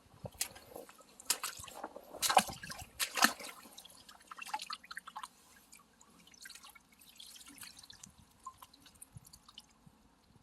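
Water dripping and splashing in irregular sharp strikes, the loudest four within the first few seconds, then smaller scattered drips.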